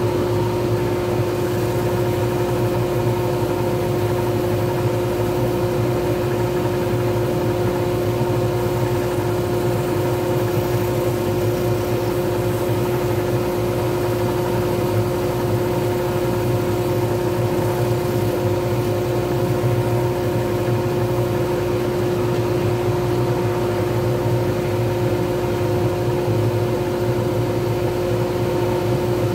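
Wood lathe running at a constant speed while a pen blank is finished on it: a steady motor hum with a constant whine, unchanging throughout.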